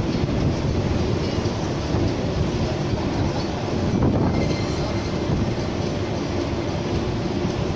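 Strong wind on the open deck, a continuous rumbling roar buffeting the microphone, swelling and easing slightly.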